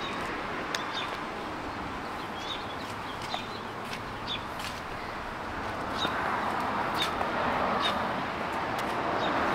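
Outdoor ambience with small birds chirping now and then over a steady background hiss, and the rush of a passing vehicle growing louder over the last few seconds.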